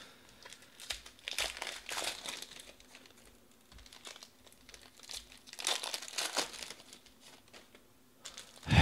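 Foil trading-card pack wrappers crinkling and cards being handled, in irregular rustling bursts about a second in and again around six seconds in.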